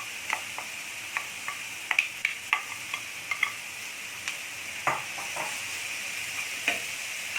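Pieces of fish sizzling as they fry in hot oil with garlic and onion, with scattered clicks and scrapes of a utensil stirring them in the pan.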